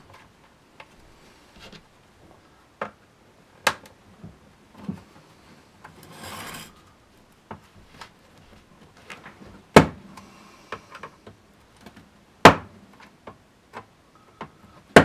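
Hard plastic clicks and knocks from a Shark Navigator vacuum's floor nozzle being worked with a screwdriver as its worn wheels are pressed back into place, with a short scraping rub about six seconds in and three sharp, loud knocks in the second half.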